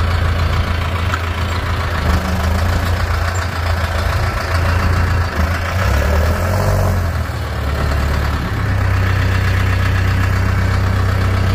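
Diesel farm tractor engine running steadily while carrying a round bale on the front loader, its pitch shifting a few times as the throttle and load change.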